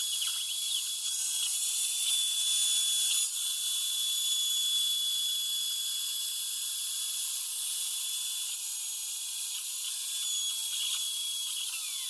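Router on a homemade CNC machine running at a steady high-pitched whine as its bit cuts a salt-shaker template out of a clamped board. A sweeping whine rises and falls briefly near the start and again near the end.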